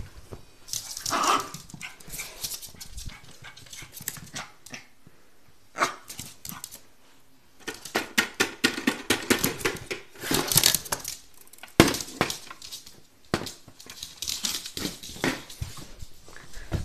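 Small dog barking and yapping in short bursts at a kitchen scale, mixed with runs of rapid clicks and knocks.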